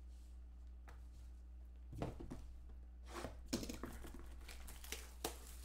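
Trading-card pack wrapper and cards being handled: crinkling and rustling with a few sharp taps, starting about two seconds in. A steady low hum runs underneath.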